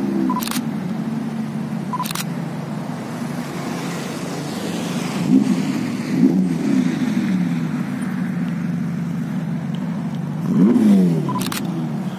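Ferrari Roma's 3.9-litre twin-turbo V8 running at low revs while the car creeps along, with three short throttle blips that rise and fall in pitch, about five seconds in, again around six seconds, and a louder one near the end. A few sharp clicks sound near the start and near the end.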